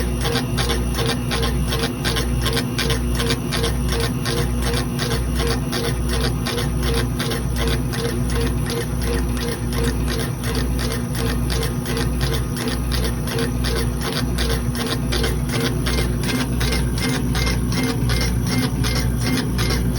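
Laser engraver rastering: the head shuttles back and forth in a steady rhythm of about one and a half strokes a second, its stepper motors whirring and clicking with each pass. The steady hum of the exhaust blower runs underneath.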